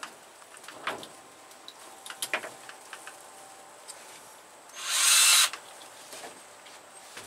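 A cordless drill drives a 1-inch drywall screw partway into a scrap-wood rack slat, pre-starting it, in one short burst of about a second a little past the middle. A few light knocks and clicks of the slats being handled come before it.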